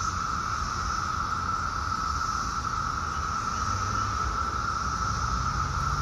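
Chorus of 17-year periodical cicadas: males calling together in one steady, unbroken drone, with a low rumble underneath.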